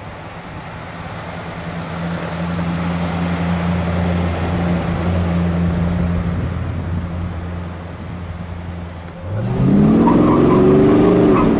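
1960 Chrysler 300F's 413 cubic-inch cross-ram V8 driving past, a steady low engine note that swells and then fades as the car goes by. About nine seconds in it switches to the engine heard from inside the car, accelerating with a rising pitch.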